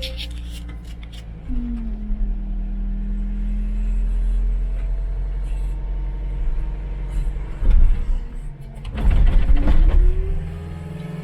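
John Deere 324E skid steer's diesel engine running steadily, with a tone that rises about 1.5 s in and then holds. Two louder stretches of rough noise come near the end as the machine works.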